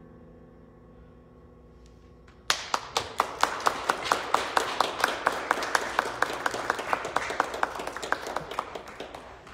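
The last chord of the music fades away, then a congregation breaks into applause about two and a half seconds in. One clapper close by claps about four times a second, loudest at first, and the applause dies down near the end.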